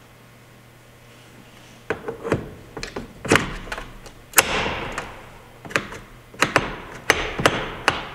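A quiet moment, then, from about two seconds in, a string of a dozen or so sharp knocks and clicks at uneven spacing, some ringing briefly: hand tools and parts being handled while the steering-wheel quick release is bolted up.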